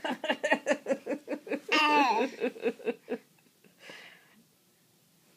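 A toddler laughing in a quick run of giggles for about three seconds, then a faint breath.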